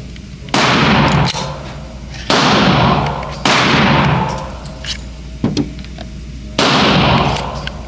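Glock 32 pistol (.357 SIG) being fired: four loud shots at uneven intervals, each followed by a long echoing decay, with a few smaller sharp cracks between them.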